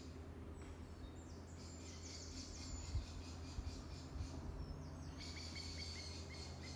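Faint songbird song: quick high trills of descending notes, then a run of short repeated chirps about five seconds in, over a steady low hum with a few soft low thumps.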